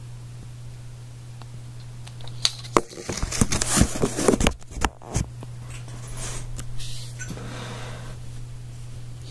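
Crinkling and rustling of packaging as a trading card box is handled and opened, loudest for about three seconds near the middle, then softer, over a steady low hum.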